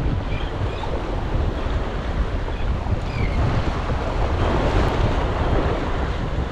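Ocean surf washing against a rock jetty, with wind buffeting the microphone in a low rumble; the wash swells louder about two-thirds of the way through.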